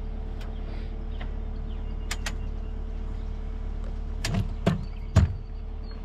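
An engine idling steadily, with a few sharp clicks and knocks over it, two about two seconds in and three more near the end.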